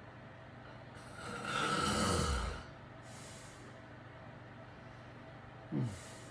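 A man snoring in his sleep: one long, loud snore about a second in, a faint breath after it, then a short snort near the end that drops in pitch.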